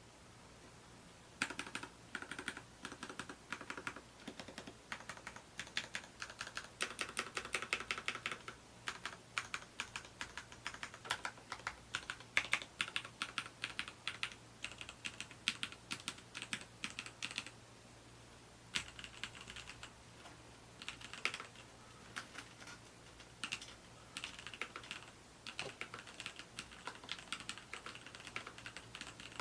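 Typing on a mechanical keyboard with lubed Cherry MX Black linear switches (60 g), keys clacking in quick, uneven runs, with a short pause a little past halfway.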